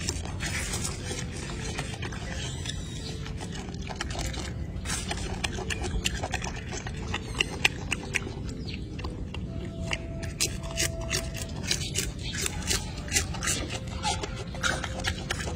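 Golden snub-nosed monkey eating leafy greens close to the microphone: frequent short, sharp clicks of chewing and handling leaves, over a steady low background rumble.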